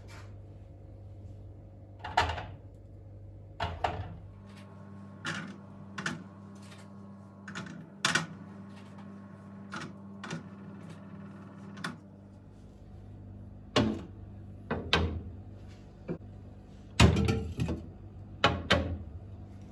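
Irregular knocks, clicks and clatters of things being handled in a kitchen, the loudest cluster near the end, over a steady low hum.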